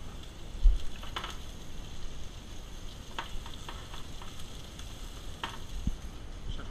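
Meat frying in a pan, sizzling steadily, with several short clinks of metal pans and utensils and a low thump near the start.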